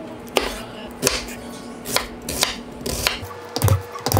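Chef's knife chopping tomato and garlic on a wooden cutting board: sharp knocks of the blade against the board, about two a second and unevenly spaced, with two heavier thumps near the end.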